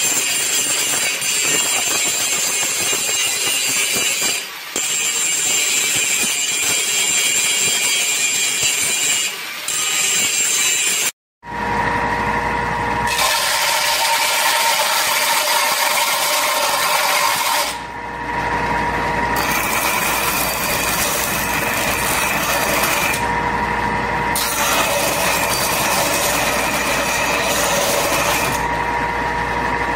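An angle grinder grinds a steel bar clamped in a vise, with two short dips in pressure. After an abrupt cut, a belt grinder runs with a steady hum and whine. The high hiss of steel pressed against the belt comes and goes in passes, breaking off briefly between them.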